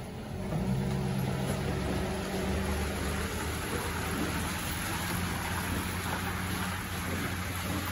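Half-ton pickup's engine working steadily to tow a heavy boat on a triple-axle trailer, with the tyres rolling and crackling over wet gravel.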